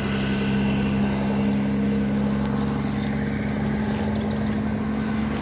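An engine running steadily at a constant pitch, a low, even hum with no revving.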